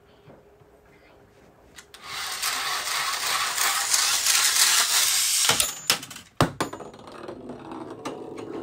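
A small handheld toy whirring and rattling loudly for about three seconds, then a few sharp clicks.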